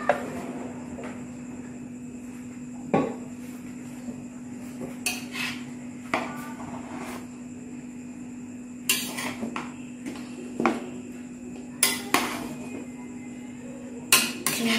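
A metal spoon scraping through cooked rice and clinking against the side of a large aluminium pot, with sharp knocks every second or two, as the rice is fluffed after steaming on dum.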